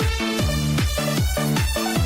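Background electronic dance music with a steady kick-drum beat, about four beats a second, under held synth chords.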